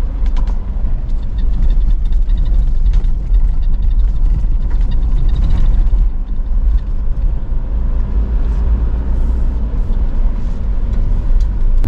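In-cabin rumble of a 4x4 driving on a gravel road: steady low engine and tyre noise, with scattered light clicks from gravel under the tyres.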